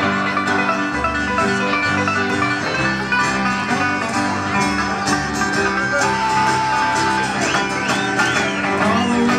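Live acoustic string band playing an instrumental break, banjo and guitar picking with a dense bluegrass sound. About six seconds in a long held note comes in over it, with sliding notes near the end.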